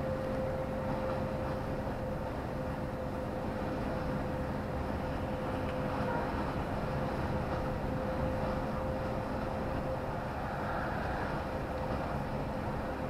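Steady engine and road noise heard inside the cab of a vehicle cruising on a motorway, with a constant low hum running through it.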